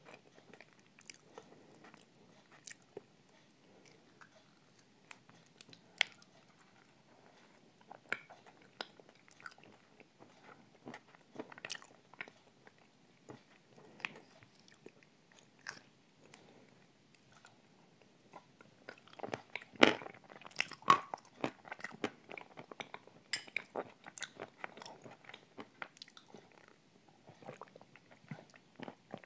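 Close-miked eating of a creamy dessert: soft chewing and wet mouth clicks, with the occasional click of a metal spoon in a glass. The sounds come in scattered single clicks, busiest and loudest about twenty seconds in.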